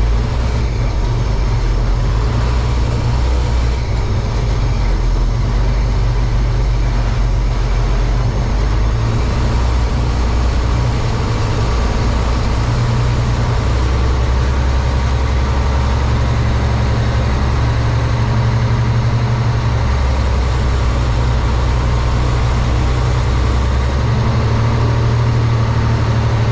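5-ton military truck's multifuel diesel engine running with a loud, steady low drone whose pitch steps up and down several times as the truck is driven.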